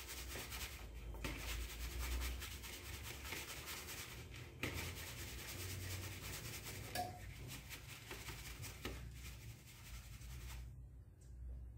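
Hand rubbing toasted wheat flour through a fine plastic mesh sieve: a steady scratchy rustle as the lumps that formed during toasting are broken up and pushed through. The rustling stops near the end.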